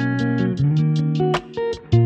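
Background music led by a plucked guitar over a bass line, with a quick steady beat.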